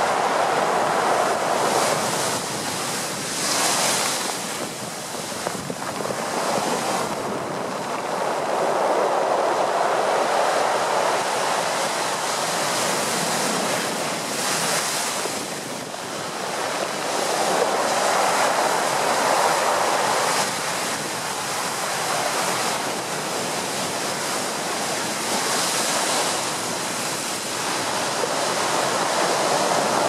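Heavy storm surf at high tide breaking over groynes and against a sea wall, coming in surges several seconds apart with bursts of hiss as waves break. Strong wind blows across the microphone throughout.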